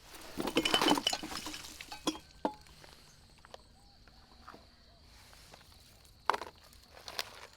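Hard cups and utensils clinking and rattling as they are handled: a dense flurry of clinks about half a second in, a few single clicks after it, and two sharper clinks near the end.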